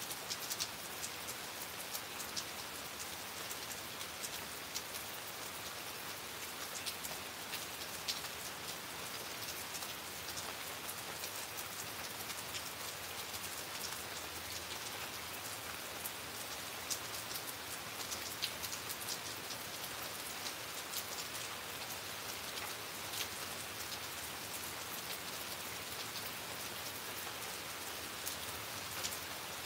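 Steady rain falling, an even hiss with frequent sharp ticks of single drops striking close by.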